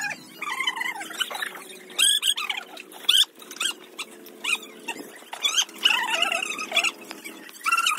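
Animal cries, many short arching calls one after another, over a steady low hum.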